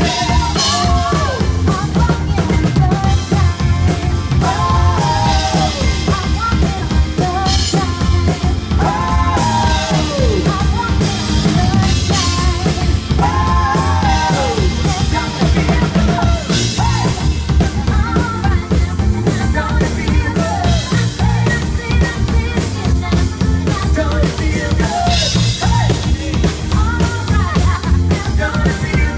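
Live rock band playing loud, with a pounding drum kit, repeated cymbal crashes and singers carrying the melody.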